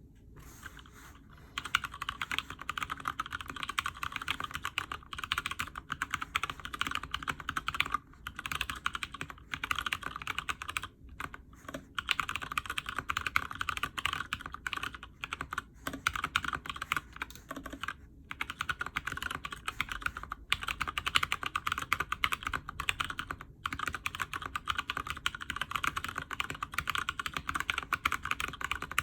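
Steady, fast typing on an Alice-layout mechanical keyboard in a frosted acrylic case, with lubed Cherry MX Brown tactile switches and PBT keycaps. It starts about a second and a half in and keeps going, with a few brief pauses.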